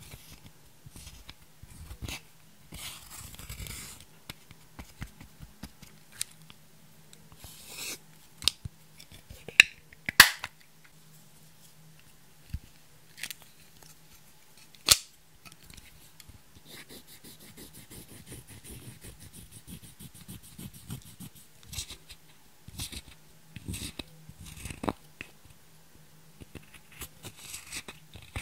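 A thin wooden stick scraping and crumbling pressed makeup powder out of compacts, in irregular scratchy bursts, with scattered sharp clicks and taps against the compacts and the glass dish, the loudest about ten seconds in and again near fifteen seconds.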